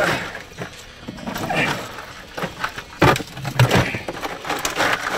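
Ice crunching and rattling in a boat cooler as a large fish is pushed in and packed with ice by hand, with a few sharp knocks, the loudest about three seconds in.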